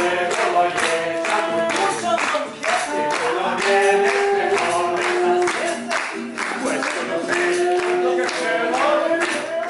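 Live stage performance: a small group of men singing a Latin song in Spanish together, accompanied by acoustic guitar and saxophone, with a steady beat of hand claps.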